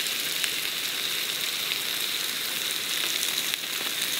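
Pork belly sizzling as it fries: a steady hiss with faint crackling pops.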